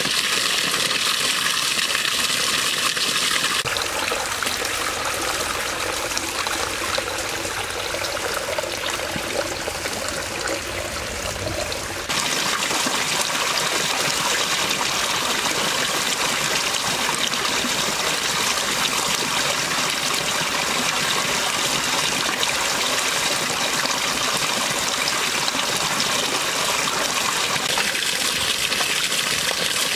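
Water pouring from a bamboo pipe and splashing into a shallow mud pond, a steady trickling gush. Its tone shifts about four seconds in and again about twelve seconds in.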